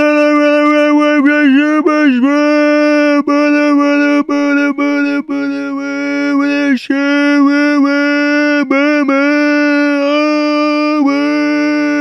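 Meme screaming sound effect: a loud, high-pitched scream held on one steady pitch, broken by short dips in pitch and brief sudden cuts every second or so.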